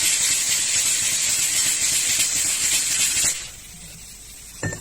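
Loud steady hiss with a high-pitched edge that cuts off about three seconds in, followed by a single short knock near the end.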